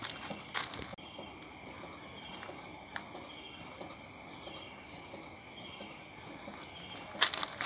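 Crickets trilling steadily, with a short chirp repeating a little under a second apart, and a few sharp clicks near the end.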